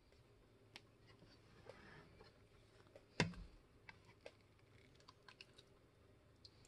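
Faint clicks and light knocks of a plastic ladle against the stainless steel pot of an electric pressure cooker as chili is scooped, with one louder knock about three seconds in.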